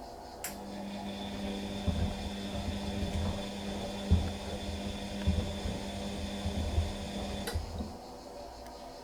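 Bosch Classic 6 front-loading washing machine running with a steady motor hum and a faint high whine, with irregular low thuds as the shoes tumble in the drum. The motor cuts off about seven and a half seconds in, leaving a fainter hum, as the cycle nears its end.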